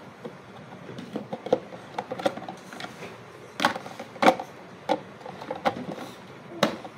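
Scattered plastic clicks and knocks from handling the swing-out filter holder of a Princess drip coffee maker, with a few sharper knocks in the second half.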